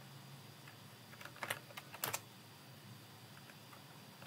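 Computer keyboard being typed on: a few quick keystrokes about a second and two seconds in.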